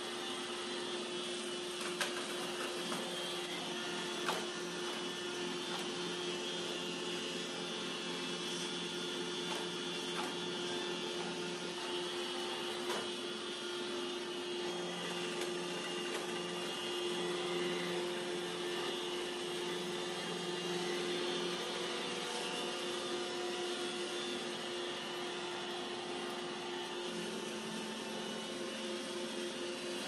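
iRobot Roomba J7+ robot vacuum running: a steady whir of its vacuum motor and brushes with a constant tone in it, and two light clicks about two and four seconds in.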